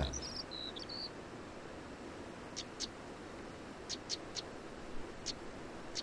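Faint wild outdoor ambience. A bird gives a few short whistled notes in the first second, then a soft steady hiss continues with scattered brief, high chirps.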